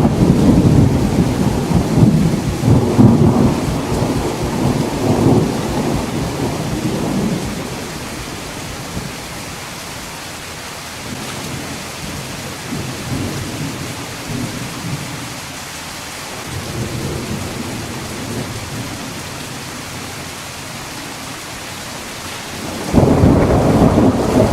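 Thunderstorm: long rolls of thunder over steady rain. The first rumble fades after several seconds into the hiss of rain with fainter, distant rumbles, and a loud new peal breaks in suddenly near the end.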